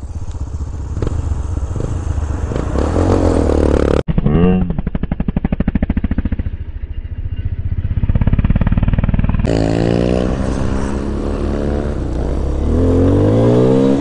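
Small 125cc motorcycle engine running. After a cut about four seconds in it gives a fast, even pulsing. Near ten seconds in it revs up again and again, rising in pitch each time as it pulls through the gears.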